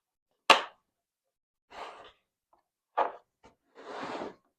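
Two latches on a hard shell tool case snapping open, one sharp click about half a second in and another about three seconds in, with brief rubbing handling noises between them and a longer one near the end as the case is opened.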